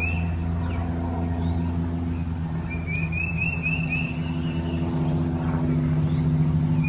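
A steady low motor drone, like a vehicle running, with short runs of high warbling chirps near the start, about three seconds in and at the end.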